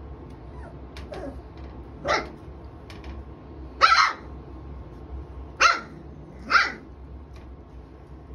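Three-week-old puppies barking: four short, high yaps spread over a few seconds, with a fainter yip about a second in.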